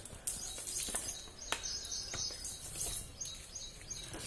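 Small birds chirping again and again over steady outdoor background noise, with a few sharp clicks in the first second or so.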